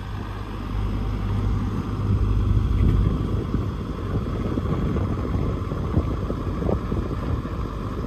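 Kubota rice combine harvester running with a steady rumble while its unloading auger feeds harvested rice grain up the raised arm and out of the spout into a bulk bag.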